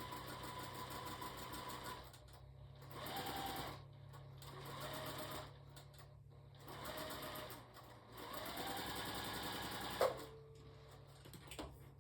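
Sewing machine stitching a curved quilt seam slowly in stop-start runs: running steadily at first, then four short spurts of about a second each with pauses between as the fabric is eased through, and a sharp click about ten seconds in.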